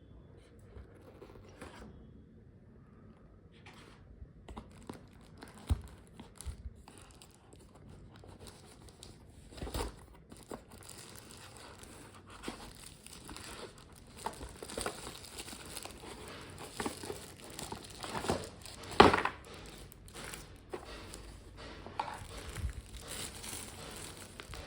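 Packaging crinkling and rustling as a keyboard is unboxed, with scattered irregular knocks from handling; the sharpest knock comes a little after halfway through.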